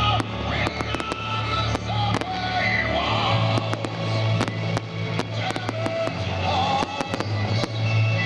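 Fireworks going off: many sharp bangs and crackles at irregular intervals, over loud music with a heavy bass line.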